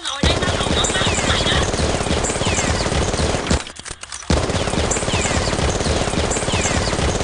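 Automatic gunfire sound effect: rapid, continuous shots in two long bursts with a short break about halfway through, with short falling whistles among the shots.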